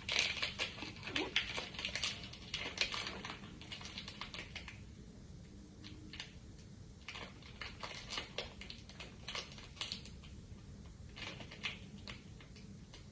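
Sonny Angel blind-box packaging being handled and unwrapped: spells of crinkling with many small sharp clicks, coming and going several times.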